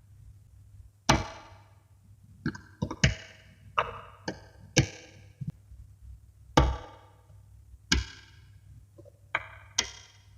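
Small magnetic balls snapping together and onto a build, a dozen or so sharp clicks at an uneven pace.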